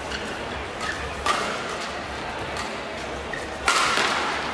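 Badminton rally: rackets striking the shuttlecock in sharp cracks about a second apart, the loudest a little over a second in and near the end, over the background noise of a large hall.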